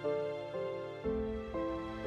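Background music: a melody with a new note struck about twice a second over a sustained bass, the bass note changing about a second in.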